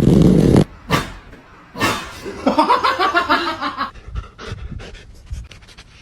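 A dog panting and making short vocal sounds: a loud one at the start, a longer wavering one in the middle, then quick panting breaths.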